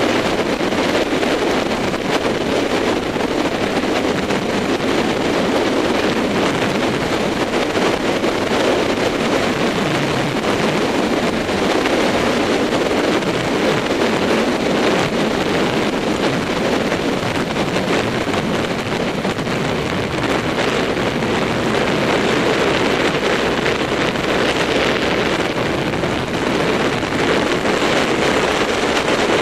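Steady rush of wind buffeting the microphone on a motorcycle riding at road speed, with the bike's running noise underneath.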